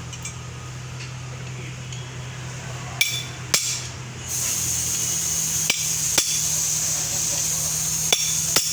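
Sharp metallic knocks and taps from hand tools on car air-conditioning compressor parts during disassembly, about six in all. A steady hiss comes in a little past the middle and carries on under them, with a low hum throughout.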